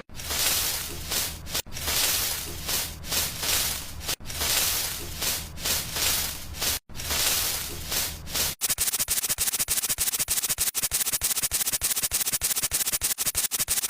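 Rubbing and scraping strokes in several short takes, then from about two-thirds in a fast, even rhythm of short rasping strokes.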